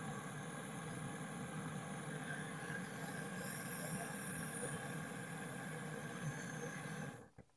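Gas brazing torch burning steadily on a refrigerator's copper refrigerant line, shut off abruptly about seven seconds in.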